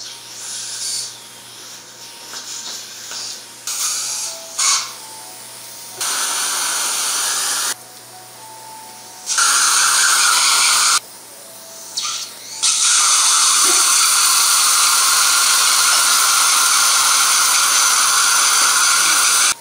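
Implant surgical drill handpiece running in on-off bursts as it prepares the implant site in the tooth socket: a high, hissing whir that starts and stops sharply. There are two short runs of about two seconds and then a long run for the last seven seconds or so, with softer irregular noises in the first few seconds.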